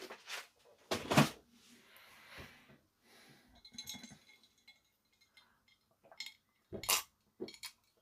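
Handling of small hard objects: a few knocks and light metallic clinks, with a short ringing jingle about four seconds in. The loudest knock comes about a second in.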